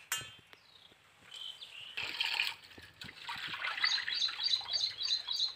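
Cut fish being washed by hand in a steel plate of water: splashing and rubbing. In the second half a bird chirps repeatedly, about four calls a second.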